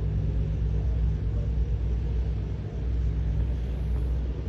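Thai illuminated night kites humming overhead: a low, steady drone of several tones at once.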